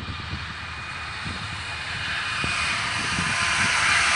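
Diesel locomotives at the head of a BNSF freight train approaching, their engine noise and rumble growing steadily louder as the lead unit draws near.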